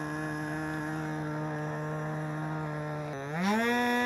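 OS Engines .10 FP two-stroke glow engine running at a steady speed, then revving up quickly to a higher, louder pitch about three seconds in.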